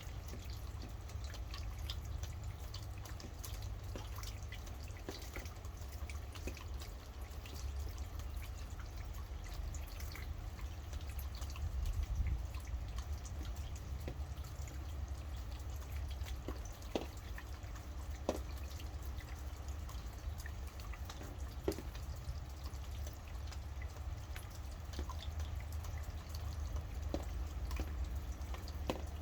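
Rain falling, with many irregular drops dripping and pattering over a steady low rumble, and a few louder single drops now and then.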